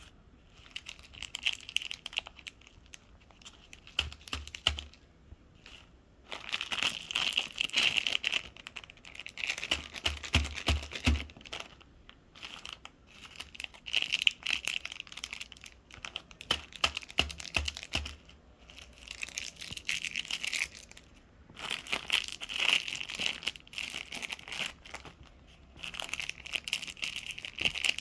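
Candy wrappers crinkling and tearing as they are opened, in repeated bursts of dense crackling a few seconds long with short pauses between.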